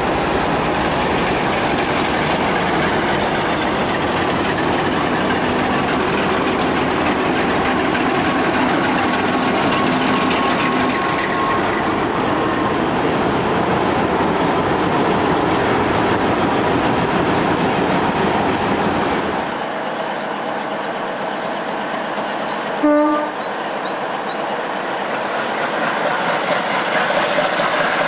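A pair of MLW MX627 diesel locomotives, each with an Alco 251 V12 engine, running past with a passenger train, followed by the coaches' wheels clattering over rail joints. After a sudden click, a second MX627's diesel engine builds up near the end as it starts a train.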